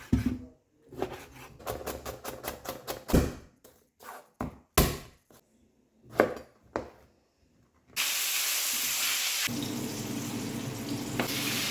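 A run of irregular knocks and clicks, kitchen items being handled and set down. About eight seconds in, a steady hiss starts and runs on.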